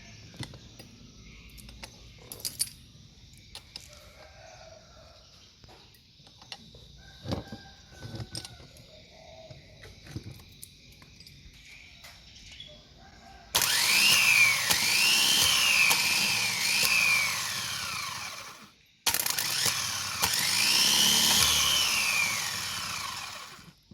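A Kobelco excavator starter motor, just restored, test-run in two bursts about five seconds each. Its whine rises and falls in pitch several times as it spins up and slows. Small clicks and taps of handling come before the runs.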